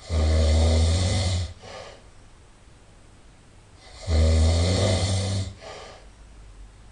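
A person snoring loudly in deep sleep: two long, deep snores about four seconds apart, each lasting over a second and followed by a short, softer breath.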